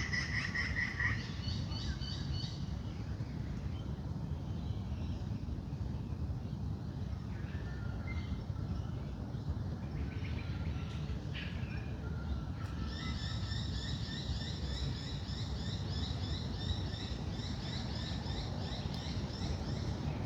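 Wild birds calling in a dawn chorus. A rapid trill of repeated high notes is heard briefly at the start, then again from about thirteen seconds in, with scattered softer calls in between, over a steady low rumble.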